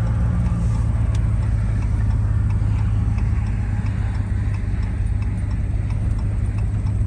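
Steady low rumble of a pickup truck driving slowly, heard inside the cab, with a light regular ticking of the turn signal as it turns off the road.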